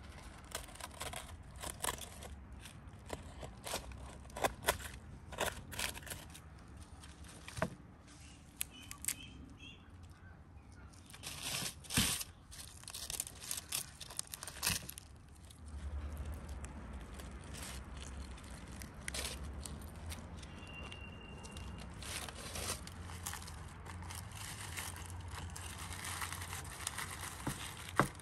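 Knife working through the crisp, charred skin of a whole roasted trout on a foil-lined metal tray: irregular crackling, scraping and tearing of the crust, with aluminium foil crinkling.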